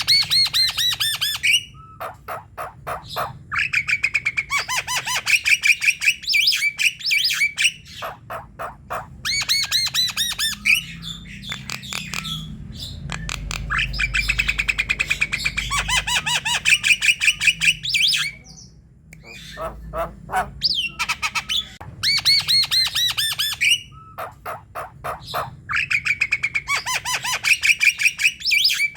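Javan myna (jalak kebo) singing energetically: phrases of rapid, repeated notes, one after another, with short pauses between them.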